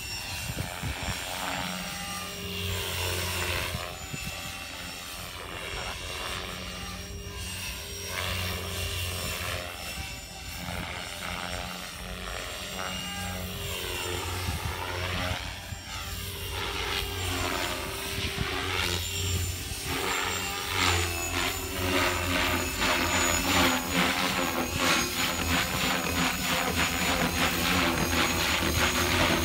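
Radio-controlled helicopter flying aerobatics: motor whine and rotor-blade chop, the pitch sweeping up and down several times as it swoops and passes. In the last third it gets louder and the rotor chop turns fast and dense as it flies closer.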